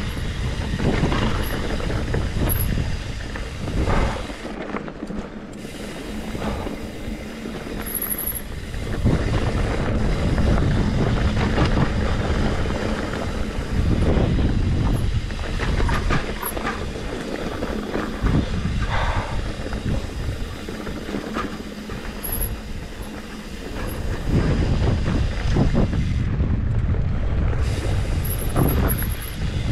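Mountain bike riding a rough dirt singletrack: the tyres and frame rattle and clatter over rocks, with wind buffeting the microphone. The noise eases off briefly twice.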